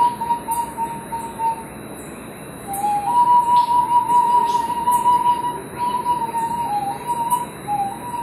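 Flute playing a slow line of long, pure held notes around one pitch, with small dips between them. It breaks off for about a second near the two-second mark, then comes back on a long sustained note. A faint high hiss pulses regularly underneath.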